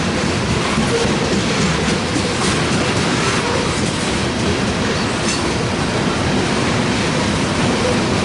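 Loaded freight train of covered grain hopper cars rolling past, steady and loud, the wheels clacking over rail joints with faint wheel squeal.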